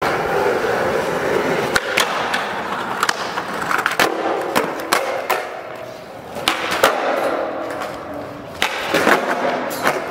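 Skateboard wheels rolling on a smooth concrete floor, with sharp clacks of the board striking the ground at irregular moments.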